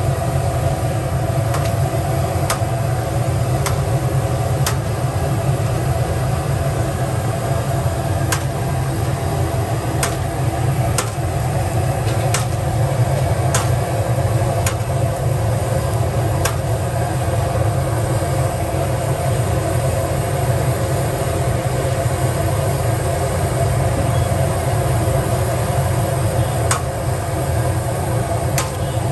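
Sabudana vadas deep-frying in a large kadhai of oil, a steady sizzle over a constant low rumble. Sharp metal clicks come now and then as the slotted steel ladle knocks against the pan.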